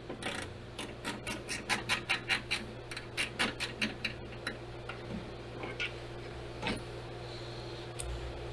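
Small ratcheting screwdriver clicking in quick, even ticks, about four or five a second, while backing out a small screw that holds a car's rear backup camera. After about four seconds the ticking stops, leaving a few scattered clicks.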